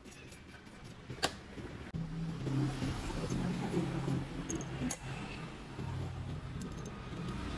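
Short steel rods handled over a steel tube: a sharp click about a second in, then a few light metal clinks. A steady low rumble runs underneath from about two seconds in.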